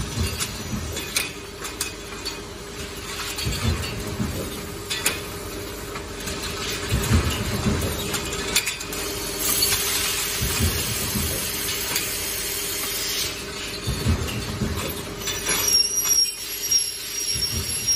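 Factory machinery running with a steady hum, while long aluminium frame profiles scrape and clatter against each other and on a roller conveyor as they are handled. Dull thuds recur about every three and a half seconds, and a thin high whine comes in near the end.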